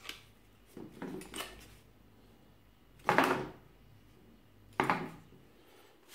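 Handling knocks and clatters of a Parkside PSTK 800 corded jigsaw's plastic housing as it is turned over in the hands, with the tool switched off. There are a few separate short knocks, faint ones early and the two loudest about three and five seconds in.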